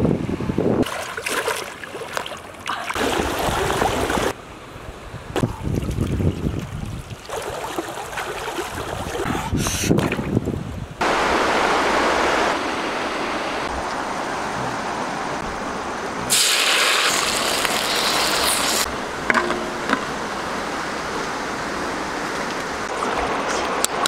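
Outdoor wind and water noise that changes abruptly every few seconds as short clips cut into one another, with wind buffeting the microphone early on. From about halfway there is a steady rush of flowing river water over shallows, with a brighter hiss for a few seconds.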